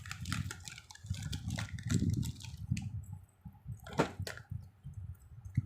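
Handling noise from a necklace set and its packing being moved about by hand: soft rustling and bumping with scattered light clicks, the sharpest click about four seconds in and another near the end.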